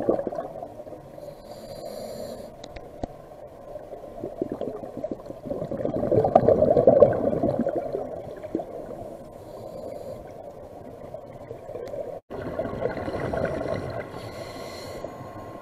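Scuba diver breathing through a regulator underwater: a short hiss on each inhale and a longer gurgling rush of exhaust bubbles, the loudest about six to eight seconds in. The sound drops out for an instant at an edit about twelve seconds in.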